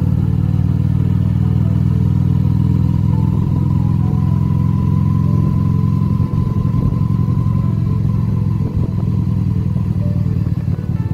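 Motorcycle engine running steadily while riding along a street, heard from a camera mounted on the handlebars.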